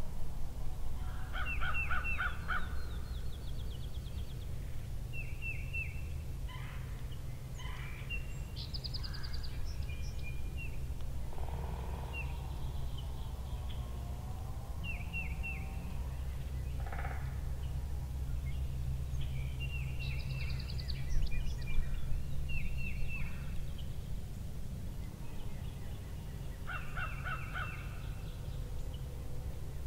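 Wild birds calling in the open: short songbird phrases of a few high notes repeat every several seconds, with a few harsher calls in between, over a steady low rumble of wind.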